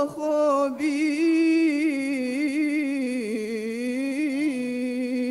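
Qur'an recitation: a single voice chanting one long drawn-out phrase. Its pitch wavers in ornaments, then holds steady near the end.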